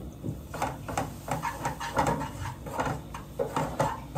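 Wooden spatula stirring and scraping a thick mixture of ghee-roasted wheat flour, jaggery and milk around a frying pan, in a quick, irregular run of scrapes.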